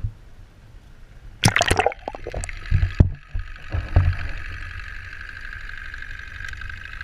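Water splashing and gurgling as a camera is dipped under the surface about a second and a half in, with a few low knocks, then the steady muffled hiss heard from under water.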